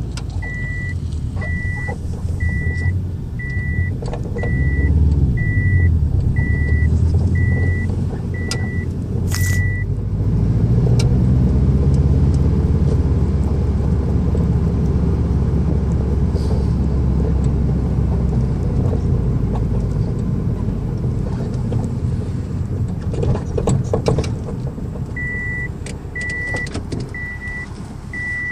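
Low engine and road rumble of a car moving slowly, with a repeating electronic beep about once a second for the first ten seconds and again near the end. A sharp click comes about nine seconds in, and a few knocks come about two-thirds of the way through, which may be the suspension clunk suspected in the BC coilovers.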